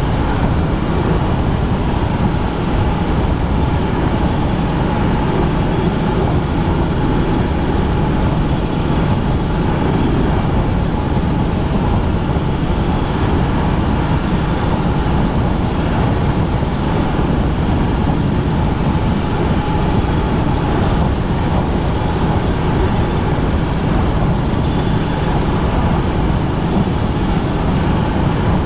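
Helicopter in flight: a steady, loud drone of engine and rotors with a faint whine above it.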